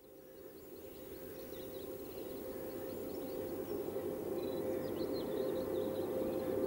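Birds chirping over a steady low drone, fading in from silence and growing louder.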